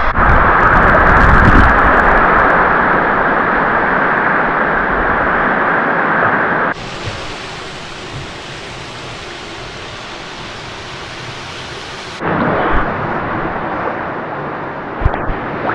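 Steady rushing noise of falling water, like a waterfall or cascade in a gorge. About seven seconds in it cuts abruptly to a quieter, hissier rush, and about five seconds later it cuts back to a fuller one.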